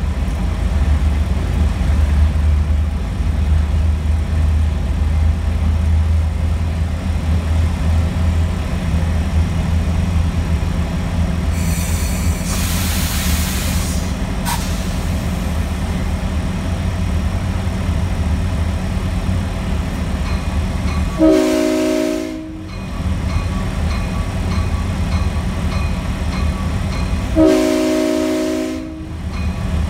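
Locomotive's diesel engine running steadily as the train rolls along the track, with a hiss lasting about two seconds near the middle. Twice in the last third the multi-tone air horn blows, each blast about a second and a half, for the grade crossing ahead.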